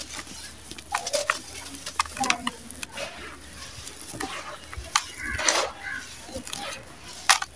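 Dry sand-cement chunks crushed and crumbled by hand, gritty crunching and crackling as grains and bits pour into a plastic tub of dry sand. There is a sharp crack near the end. A short voice or animal call sounds in the background about five seconds in.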